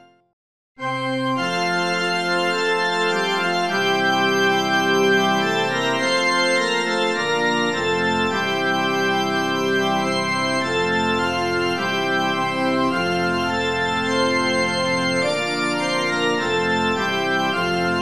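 Organ music: slow, sustained chords over a bass line that steps from note to note. It starts abruptly under a second in after a brief gap of silence.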